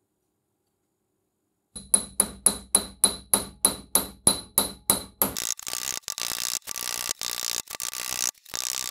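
A steel rod knocking against the rusty steel body of a rebar cutter: starting about two seconds in, about fifteen sharp, ringing metallic taps, about three a second, then a faster rattling scrape of metal on metal.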